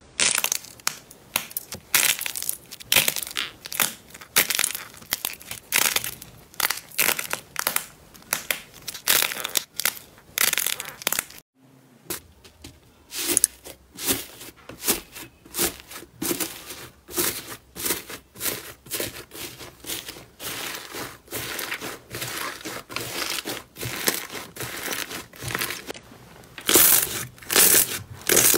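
Slime being squeezed and pressed by hand, giving sharp crackling crunches about two or three times a second, with a brief silent gap about eleven seconds in.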